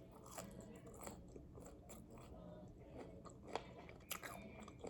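Close-up eating sounds: bites into extra-crispy fried chicken wings, with crunching and chewing coming as scattered sharp crackles, the sharpest about three and a half and four seconds in.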